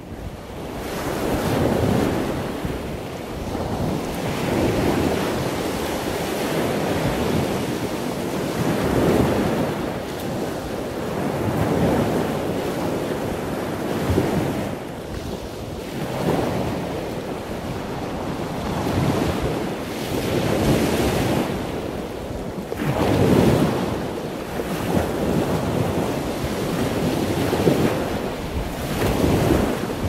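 Surf washing onto a beach with wind buffeting the microphone, a steady rush that swells and eases every few seconds.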